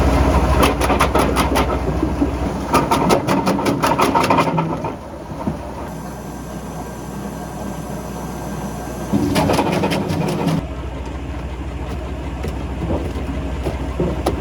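Wood chipper driven by a Massey tractor, running with a steady engine hum, with rapid cracking and clattering as branches are chipped through the first four or five seconds and again briefly about nine seconds in.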